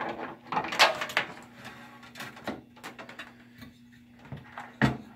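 Clicks and knocks of cables and connectors being handled at a bench power supply, loudest about a second in and again near the end, over a faint steady hum.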